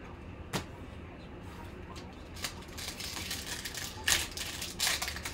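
A foil trading-card pack wrapper being torn open and crinkled by hand, crackling from about halfway through with sharper crackles near the end. A single click comes about half a second in.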